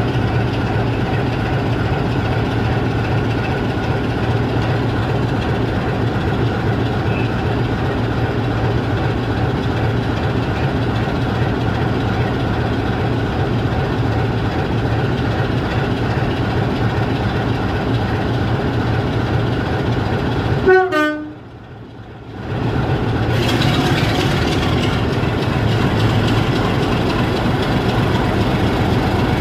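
Class 27 diesel locomotive's engine running steadily, a constant drone with a strong low hum. About 21 seconds in, a short falling run of tones is followed by a drop in the sound for about two seconds, and then the engine drone returns.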